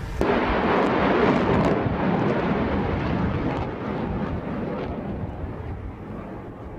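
Patriot surface-to-air missile's solid rocket motor at launch: a sudden loud rush of noise about a quarter second in that slowly fades as the missile climbs away.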